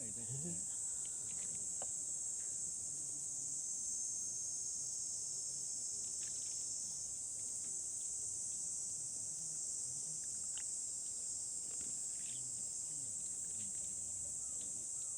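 Steady high-pitched chorus of insects, a continuous chirring with no breaks.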